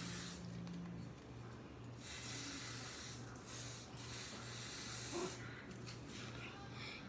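Aerosol hair-oil spray can hissing in several short bursts as it is sprayed onto hair, over a faint low hum that pulses about twice a second.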